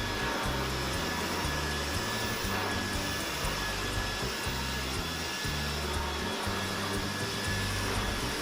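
Dyson vacuum cleaner running steadily with a thin high whine, over background music with a stepping bass line.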